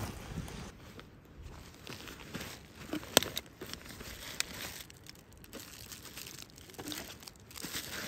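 Footsteps crunching through dry leaves and twigs, irregular, with a sharp snap about three seconds in.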